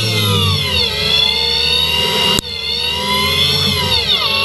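CNC lathe cutting, its spindle drive whining steadily in several tones. The pitch falls about a second in and again near the end, as the spindle slows, with a sudden brief dropout about halfway through.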